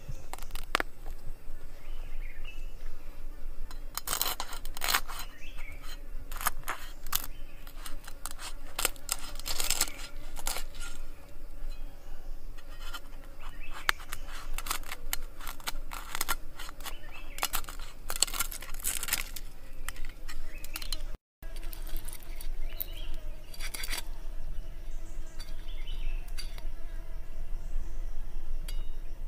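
Cleaver scraping and cutting the crisp roasted skin of a pig's head: irregular runs of short, scratchy crackles.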